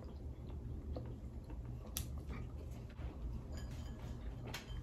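Quiet eating sounds: a person chewing a mouthful of food, with two sharp clicks, one about two seconds in and one near the end.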